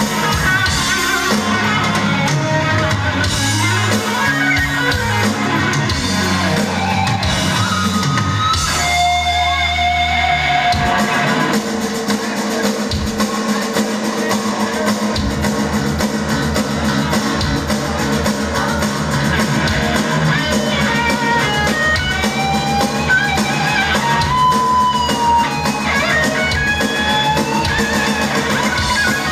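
Live rock band playing loud, with electric guitars and a drum kit. About a third of the way in, the bass and drums drop away for a few seconds, then the full band comes back in.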